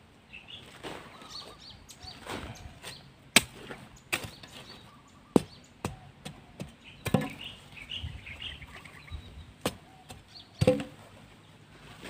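Short-handled hoe chopping into dry, chalky topsoil as soil is dug and scooped up by hand: a string of irregular sharp knocks and scrapes.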